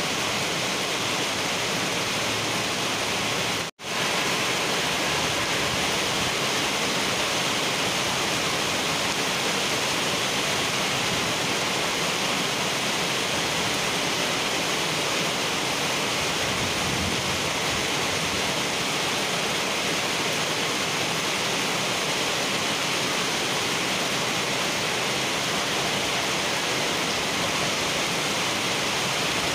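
Heavy rain falling steadily on wet asphalt pavement, a dense, even hiss of drops splashing. The sound cuts out for an instant about four seconds in.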